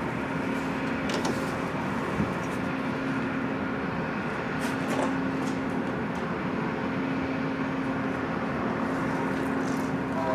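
Steady mechanical droning hum with one constant low tone, and a few faint clicks and taps over it.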